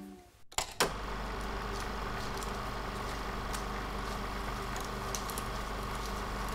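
Old film projector sound effect: a steady mechanical whirr with a low hum and scattered clicks. It starts with two clicks about half a second in, as guitar music fades out.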